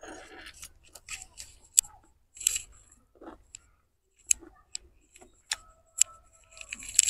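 Close-up eating sounds from someone eating biryani by hand: a string of sharp, irregular wet clicks and smacks from the mouth while chewing.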